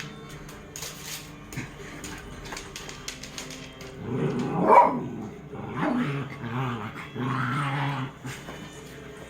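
Pet dogs barking and growling in three outbursts over the second half, the loudest just before five seconds in.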